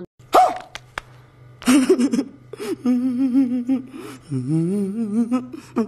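A man sobbing and wailing in exaggerated, comic distress: a sharp sobbing gasp, then a long wavering wail that bends up and down in pitch.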